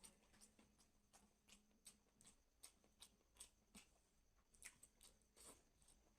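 Faint close-up chewing of food, with a run of short wet mouth clicks, about two or three a second.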